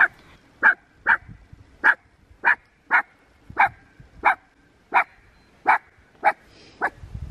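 A dog barking repeatedly, about a dozen sharp barks roughly every half second. She is barking in alarm at a human-silhouette target that has suddenly sprung up in front of her during a startle test.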